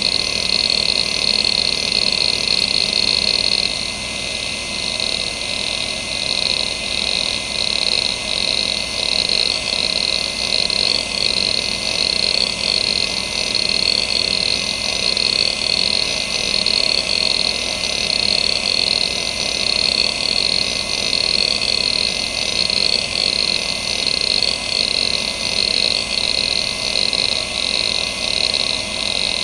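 Seagate ST9144A 2.5-inch hard drive (1992, three platters) running the hdmotion seek test: steady spindle whine under the rapid chatter of the heads seeking across the platters, rising and falling in a regular sweeping pattern. The pattern shifts and gets a little quieter about four seconds in. The drive is in perfect health.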